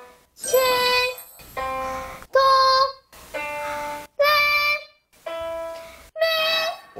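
A boy's clear high voice singing a rising scale one note at a time on solfège syllables (si, do, re, mi), each note held for under a second and pitched a step above the last, alternating with quieter held notes, as he climbs toward the top of his range.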